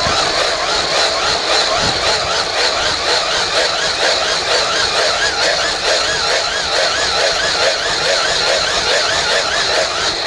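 A handheld blower runs steadily, with a wavering whine, and cuts off near the end. It is blowing air into a wood fire.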